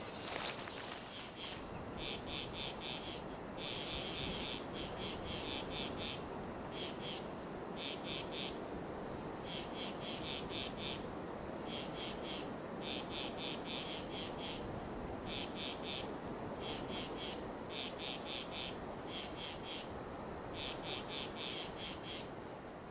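Insects calling in chorus: a steady high trill, with bursts of rapid pulses repeating every second or so over it, above a steady low hiss of background noise.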